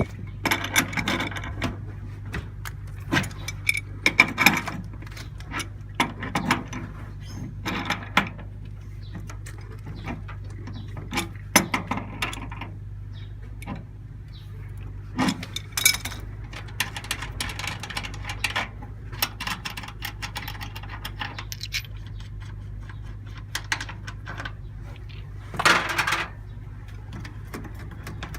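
Irregular clicks, clinks and rustling of hand work with parts and tools, over a steady low hum.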